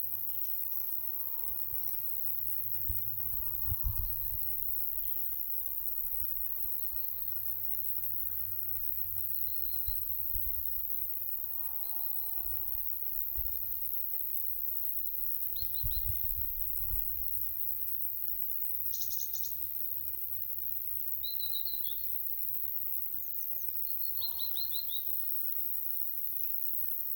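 Small birds giving scattered short, high chirps and brief trills. Light wind buffets the microphone as a low rumble, with gusts about 4 and 16 seconds in, over a constant high hiss.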